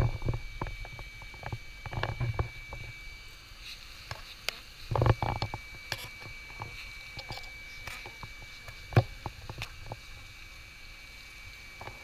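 Close handling noise while bees are vacuumed off a hanging honeycomb with a ribbed hose nozzle: scattered light clicks and knocks and a couple of soft thumps, over a faint steady high whine that breaks off for a moment about three and a half seconds in.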